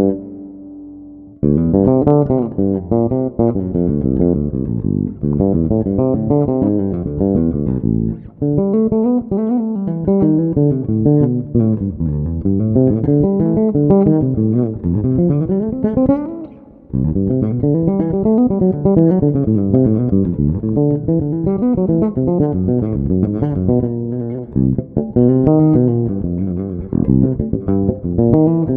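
Passive electric bass played through a Fuhrmann bass preamp pedal with the mids boosted, running quick melodic lines up and down in pitch. Short breaks in the playing come about 8 and 17 seconds in.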